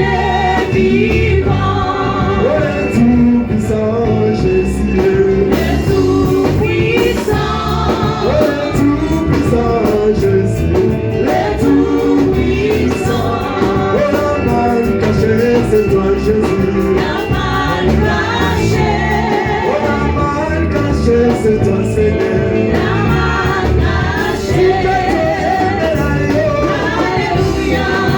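Gospel worship music: singing over a steady band accompaniment with guitar.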